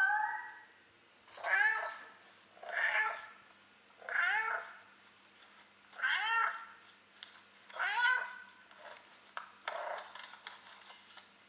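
Cat meowing repeatedly, about six meows roughly a second and a half apart, each rising and then falling in pitch, the last one rougher.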